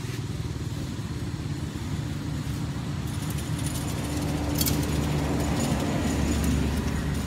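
Motorcycle engines running on the road, one passing and growing louder from about halfway through.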